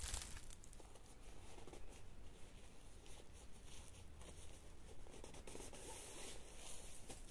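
Faint rustling and scattered small clicks and scrapes of someone handling branches and gear among dry leaves and brush.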